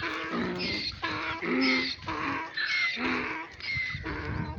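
Flock of sheep and lambs bleating, many calls overlapping one after another.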